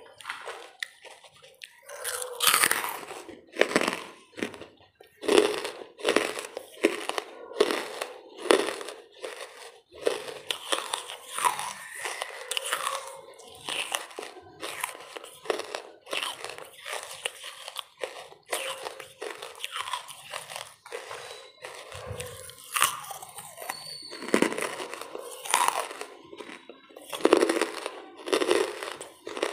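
Someone biting and chewing dry lumps of wood charcoal: a run of sharp, irregular crunches, about one a second, starting about two seconds in.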